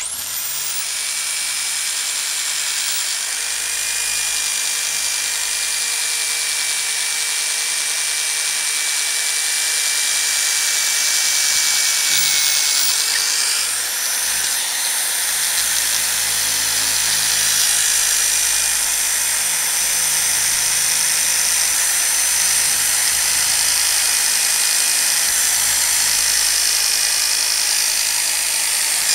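High-speed power drill running steadily, its bit grinding grooves and holes into a urethane skateboard wheel. It makes a continuous whine that shifts a little in pitch about halfway through.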